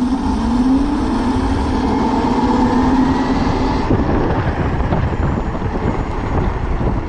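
A 72-volt QS90 electric motor on a minibike whines under full throttle from a standstill, the whine rising in pitch for about four seconds and then easing. Wind rumbles on the microphone throughout.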